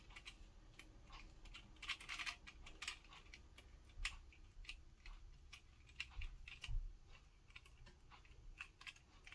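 Small, irregular plastic clicks and rattles as the cutter heads and retainer of a Sejoy three-head rotary electric shaver are handled and fitted back into the shaver head, with a couple of dull knocks about six to seven seconds in.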